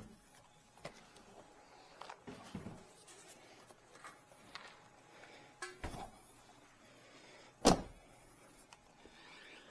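Handling and movement noises as a person gets out of a car in a garage: scattered light clicks and knocks, and one loud, deep thump about three-quarters of the way through.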